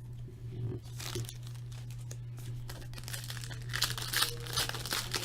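Foil trading-card pack wrappers crinkling and tearing as packs are opened and the cards handled, busiest near the end, over a steady low electrical hum.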